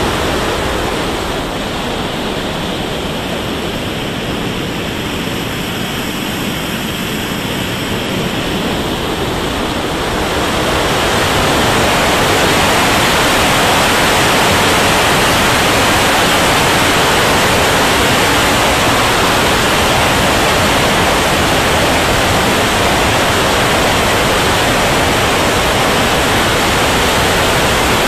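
Steady rush of wind and turbine noise from an RC turbine jet in flight, picked up by a camera mounted on the model's nose. It grows louder and brighter about ten seconds in.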